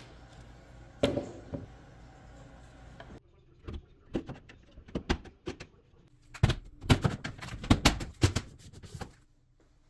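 Sharp knocks and taps of a wooden frame being handled and set against a wooden door: one loud knock about a second in, then a run of quick clacks, thickest from about six to nine seconds in. A steady low hum runs underneath and stops about three seconds in.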